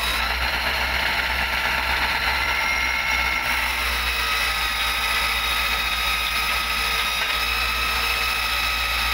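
A motor-driven abrasive grinding wheel grinding the inside of a steel bearing race. The sound is a steady grinding hiss with a constant high whine.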